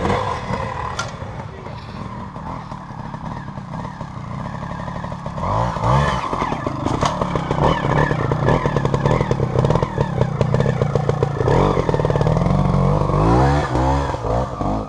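Vintage trials motorcycle engine, quieter for the first few seconds, then loud from about five seconds in, revving up in short throttle rises and running hard between them.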